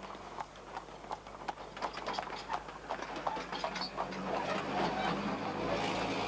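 Irregular clicks and knocks, several a second, over a steady low hum; a band of noise swells near the end.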